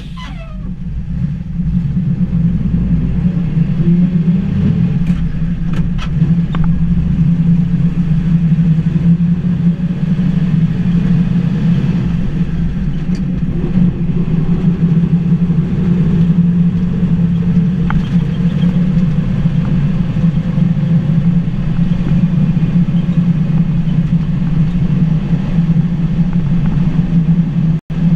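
Engine of a 1952 Ford F-8 truck running steadily under way, heard from inside the cab as a loud, even drone. It builds up over the first second or so and breaks off for a moment near the end.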